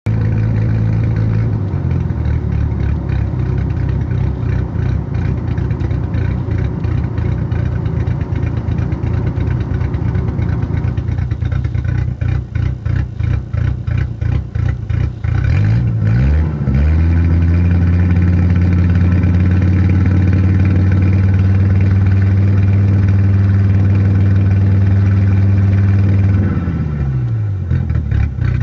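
Engine idling roughly and unevenly, stumbling with a broken beat from about eleven seconds in, a sign of misfiring. About halfway through it is revved up and held at a steady higher speed for about ten seconds, then drops back to idle near the end.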